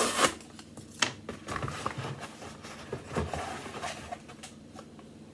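Cardboard mailer box being torn open: a loud ripping tear at the start, then scattered rustles, crinkles and small clicks as the cardboard is pulled apart and handled.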